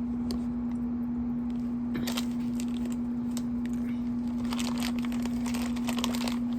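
Plastic food packaging crinkling and rustling in irregular crackly bursts as a mochi tray pack is opened, over a steady low air-conditioner hum.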